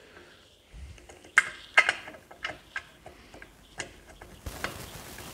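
Scattered light clicks and knocks of metal parts as a pedal box fitted with brake master cylinders is handled and turned over, with a short rustling scrape near the end.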